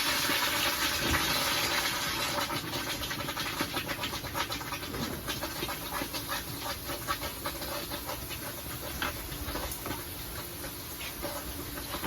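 Hot investment casting flask quenched in water: a steady hiss of steam and bubbling that slowly dies down, with dense crackling as the investment plaster breaks up and the water boils off it.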